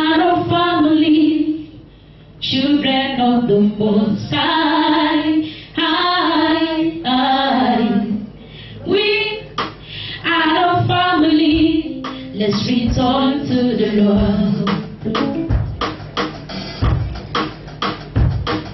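Two women and a young girl singing a gospel song into handheld microphones, their voices amplified over the church sound system. Sung phrases with short pauses between them, and short sharp knocks in the second half.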